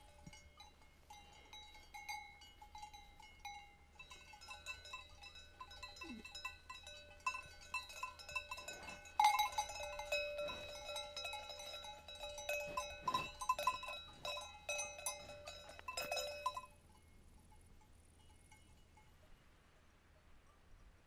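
Bells on grazing livestock clanking irregularly, several bells at different pitches ringing over one another. They stop abruptly well before the end, leaving only faint background.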